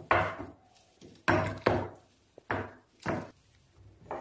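A spoon stirring thick semolina batter in a glass bowl: about five short, uneven strokes of the spoon working through the wet batter against the bowl.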